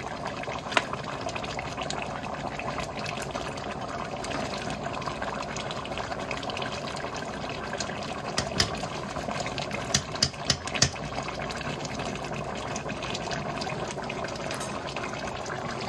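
Thick stew gravy bubbling steadily in a large pot as it cooks down and thickens. A spatula knocks against the pot a few times with sharp clicks, once near the start and several times about two-thirds of the way through.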